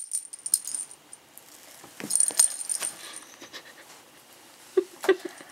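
A cat toy with a small bell jingling and rattling in two short bursts, at the start and again about two seconds in, with a few faint knocks.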